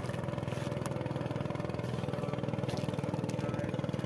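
A small engine running steadily at one speed, with a fast even putter.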